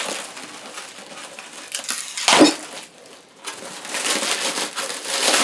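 Cellophane wrapping crinkling and rustling as it is pulled off by hand, in uneven bursts, with the loudest about two and a half seconds in and a longer stretch near the end.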